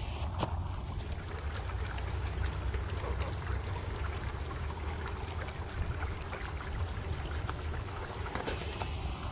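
Wind on the microphone: a steady low rumble with faint scattered ticks.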